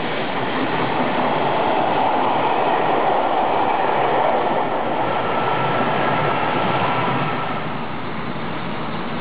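Regional passenger train's coaches rolling past at speed: a steady rush and rumble of wheels on rails that eases off about seven and a half seconds in as the last coach clears.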